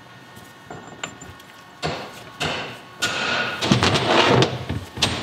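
Mallet blows on the pinion of a Toyota third-member differential, struck to seat the pinion bearing races. Two sharp thuds come about two seconds in, followed by a couple of seconds of knocking and clatter against the metal housing.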